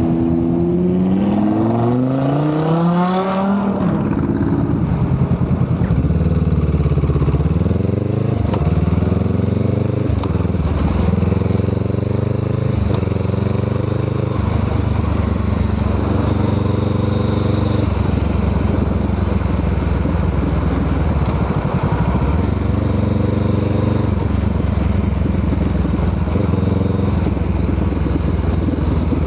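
Honda Rebel 500's parallel-twin engine through a Musarri aftermarket muffler, revving up hard in the first few seconds and dropping sharply in pitch at a gear change. It then runs on at varying speeds, with several more rises and dips in pitch and some steady stretches.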